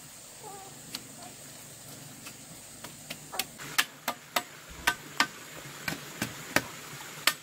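Repeated sharp knocks at an uneven pace: a few spaced out at first, then a quicker run of about two to three a second through the second half.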